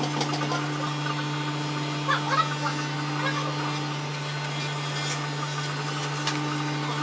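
Corded electric hair clippers running with a steady buzz as they cut through hair on top of the head, with a few short rustles and clicks as the comb and clippers move through the hair.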